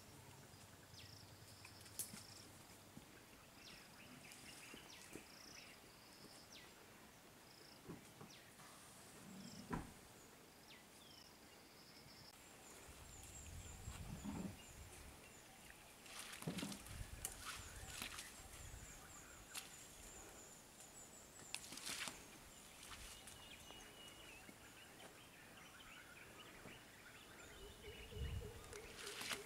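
Faint outdoor forest ambience. Short high calls repeat through the first twelve seconds, and thin high whistling calls come later, with a few scattered soft knocks and rustles.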